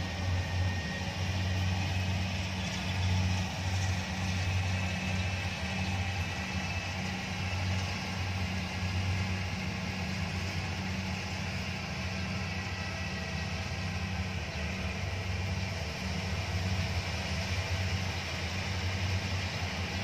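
Rice combine harvester engines running steadily as the machines cut the paddy, a continuous low droning hum.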